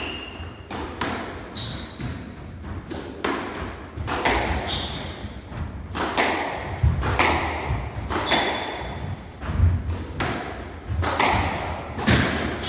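A squash rally: the ball smacking off rackets and the front and side walls at about two knocks a second, with trainers squeaking in short high chirps on the sprung wooden court floor.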